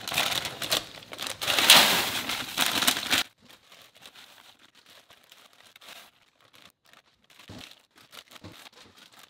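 Plastic bags of frozen vegetables crinkling loudly as they are handled and shaken out into a plastic tub. The crinkling stops abruptly about three seconds in and is followed by faint, scattered rustles and ticks.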